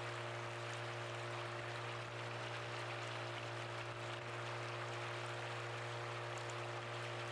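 Motorised river pirogue under way at steady speed: the outboard engine's even drone with water rushing along the hull.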